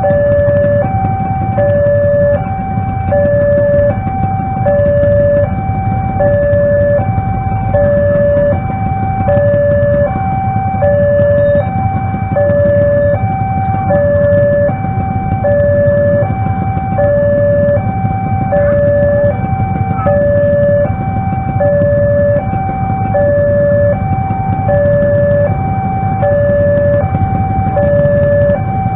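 Railway level-crossing warning alarm sounding its two-tone electronic signal, a lower and a higher tone alternating evenly about once a second without a break. It is the warning that a train is approaching and the barrier is closed.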